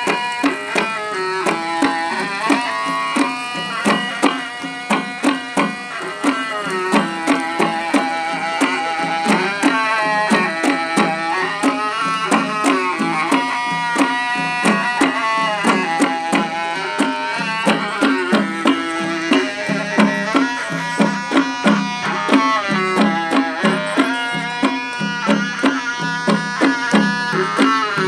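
Live Dimasa folk dance music: a long wooden reed pipe (muri) plays a wavering, gliding melody over a steady beat on a double-headed drum (khram).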